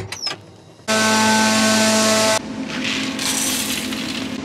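A loud mechanical whir with a steady hum starts suddenly about a second in and cuts off a second and a half later. Then shelled corn kernels pour and rattle into the hopper of a grain moisture tester.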